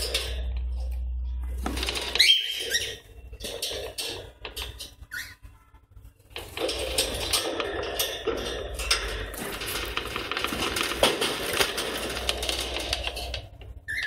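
Cockatiels in a cage around a wooden nest box: a busy run of clicks, scratches and pecking with a few short chirps about two seconds in. It goes quieter for a couple of seconds midway, then the clicking and scratching picks up again.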